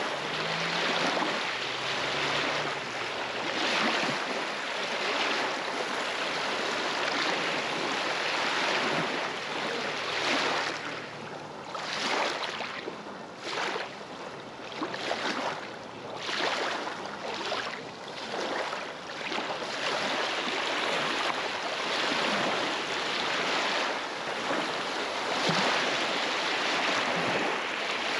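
Small waves on a lake lapping and breaking against a stony shore. They come in swells every second or two, with a run of sharper splashes in the middle.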